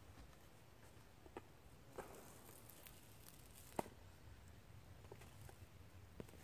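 Near silence with a faint low hum and a few soft clicks and taps, the sharpest one a little under four seconds in.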